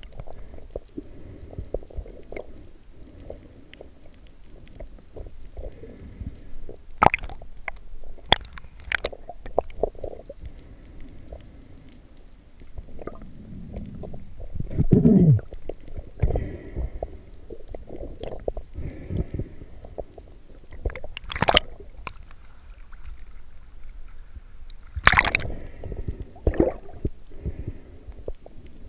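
Underwater sound heard through a camera's waterproof housing: a low rumble of water moving past, with scattered sharp clicks and knocks and a loud falling gurgle about halfway.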